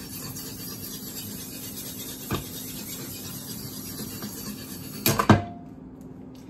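Steel chef's knife blade scraping steadily across a diamond sharpening plate in quick metal-removing strokes, grinding the edge. About five seconds in come a few sharp clacks of blade on stone, the loudest sound, and the scraping stops as the knife is lifted off.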